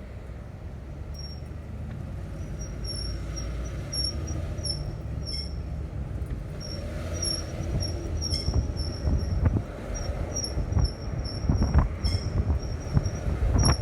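Ford Flex SUV on the move, with a high-pitched squeal in short repeated chirps over a low rumble. The chirps come more often and the rumble grows louder in the second half.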